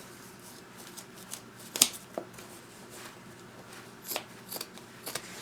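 Scissors snipping away material from a glued river shoe, in scattered short cuts with some handling rustle; the sharpest snip comes about two seconds in, with a cluster of smaller ones near the end.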